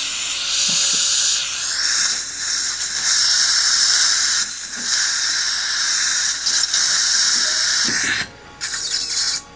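Surgical suction hissing together with a dental implant handpiece running as it drills the implant site. The steady high-pitched hiss cuts off suddenly about eight seconds in.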